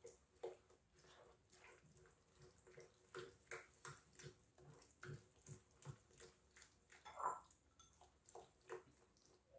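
Faint wet squishing of a hand mixing a moist, grainy chebakia mixture of melted butter and water in a glazed clay dish, in soft, irregular strokes a few times a second, one a little louder about seven seconds in.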